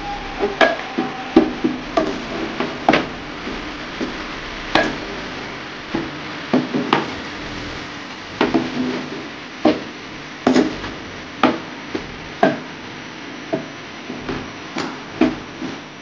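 Kitchen knife chopping on a wooden cutting board: sharp, irregular knocks, sometimes a few a second, with a short pause early on.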